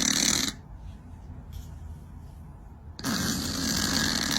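A cat snoring: one long snore ends about half a second in, then a quieter stretch, and the next snore begins about three seconds in.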